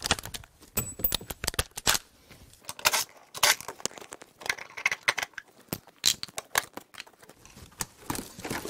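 Cordless impact driver run in short bursts to back out the fasteners of the driver's-side footrest (dead pedal), amid many sharp clicks and clatter of small metal parts and tools being handled.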